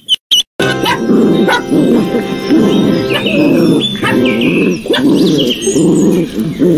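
Background music, starting about half a second in after a short break, with a puppy's high yaps and whines over it.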